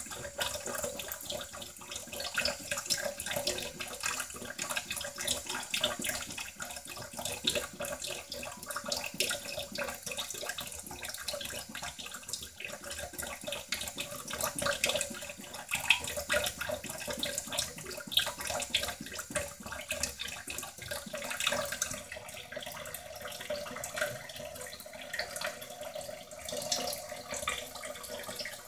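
Water running and splashing steadily, with an irregular crackling patter.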